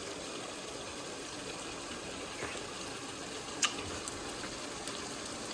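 Pork adobo simmering in a pan, its sauce reducing and thickening, a steady hiss of cooking. A single sharp click sounds about three and a half seconds in.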